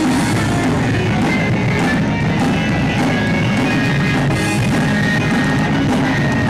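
Live punk rock band playing loud and continuously: distorted electric guitars, bass and a drum kit with cymbal hits.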